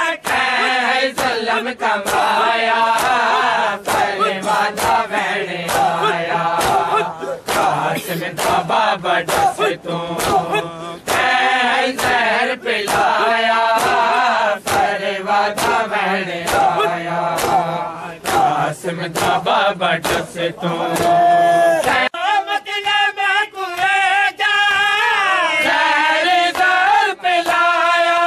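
Men chanting a Punjabi noha in unison, over the sharp slaps of bare-handed chest-beating (matam) that keep a steady beat of about two a second.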